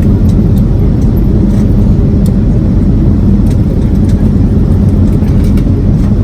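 Airliner cabin noise: the steady, loud low rumble of the jet engines and airflow heard from inside the passenger cabin.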